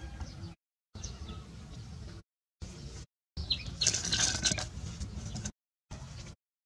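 Short bird chirps over a low outdoor rumble, with the sound cutting out to silence several times. About three and a half seconds in, a louder rustling scrape lasting about two seconds as a macaque grabs a dry branch and drags it off the dirt.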